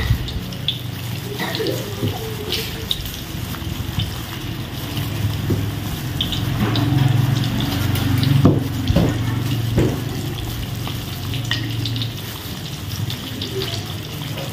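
Tap water running into a sink, with a few short knocks scattered through.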